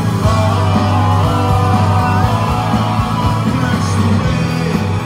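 Live rock band playing loudly through a PA: electric guitar, electric bass, keyboard and drums together, over a steady heavy bass line.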